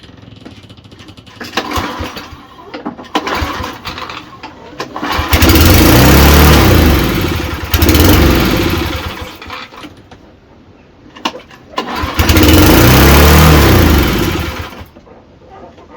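Mountfield RV150 lawn mower engine being started and running loud and fast, its pitch rising and falling, in two stretches of about five and three seconds with a drop between them. It is over-revving, running way too fast.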